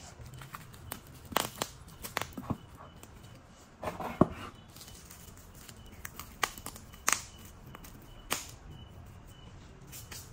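Irregular sharp clicks and knocks of hard objects being handled, about a dozen, with a cluster and the loudest knock about four seconds in.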